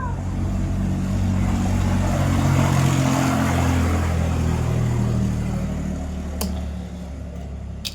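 An engine running, growing louder to a peak about three seconds in and then fading away, like a motor vehicle passing by. Two sharp clicks near the end.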